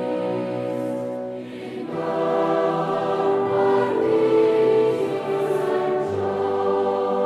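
Choir singing a slow Taizé chant in sustained, held chords, with a short dip between phrases about one and a half seconds in and a low bass note entering near the end.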